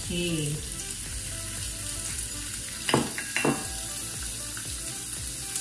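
Raw peeled prawns frying in butter and olive oil with onions and garlic, a steady sizzle in a nonstick pan. Two sharp knocks come about three seconds in.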